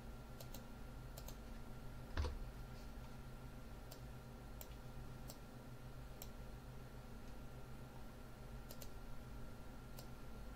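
Computer mouse clicking about ten times at irregular intervals, with one louder knock about two seconds in, over a faint steady electrical hum.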